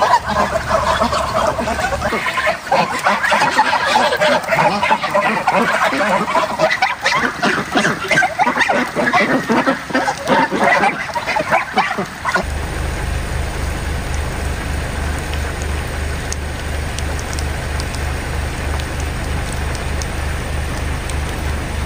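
A flock of geese and ducks honking and quacking. A little over halfway through it gives way abruptly to a steady hiss of rain.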